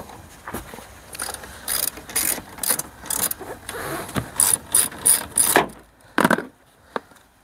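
Hand socket ratchet clicking in short strokes, about two a second, as it turns a 13 mm nut on a car's windscreen scuttle. Then a single louder knock, and the ratchet stops.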